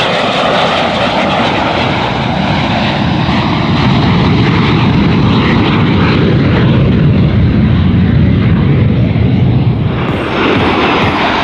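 Two Aero L-39 Albatros jet trainers flying past in a low pair, their turbofans running. The high whine fades as they move off and a deep rumble builds, and the sound cuts off abruptly about ten seconds in.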